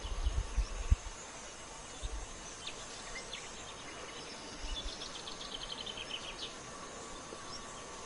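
Countryside ambience with a faint steady high hum: a bird gives a few short chirps, then a rapid trill of evenly repeated notes lasting about two seconds, near the middle. Low thumps on the microphone in the first second.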